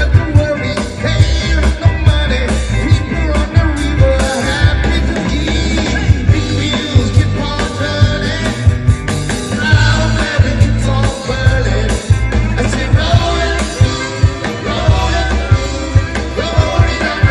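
Live band playing an upbeat rock song: a steady drum beat and bass under a melody line, with some singing.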